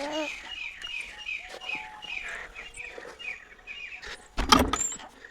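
A bird chirping over and over, about three short, slightly falling chirps a second, stopping after about three and a half seconds. A loud bump near the end.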